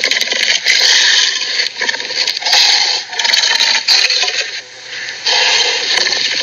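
Harsh, rasping rattle in long stretches with brief breaks, made as a growl effect for an imaginary creature.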